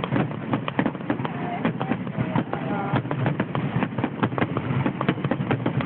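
Fireworks finale: aerial shells bursting in a dense barrage of bangs and crackles in quick succession, with no let-up.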